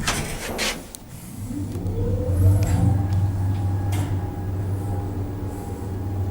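Old classic express lift's motor starting up: a brief clatter at first, then a hum that rises in pitch over about a second and settles into a steady run as the car travels.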